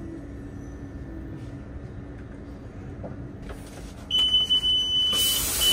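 Train carriage running with a low steady rumble. About four seconds in, a high electronic warning beep starts, first held, then breaking into short repeated beeps. A loud hiss comes in near the end.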